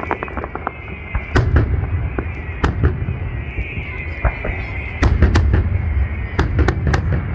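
Salute fireworks bursting overhead: a string of sharp bangs, a couple about a second and a half in and a quick cluster between five and seven seconds, over a continuous low rumble.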